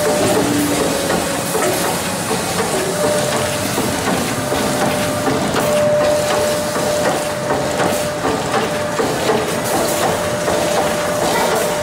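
Acerpack SAB-1250V-T2 bubble bag making machine running: a steady hiss of mechanism with a constant high whine and many quick light clicks.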